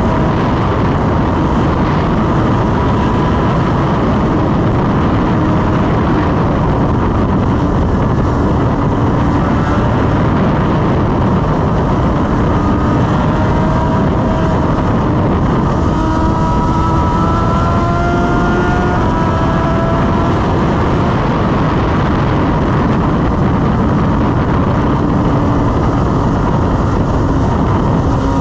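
BMW S1000RR's inline-four engine running at a steady highway cruise, its note drifting slightly up and down, under loud wind noise on the microphone.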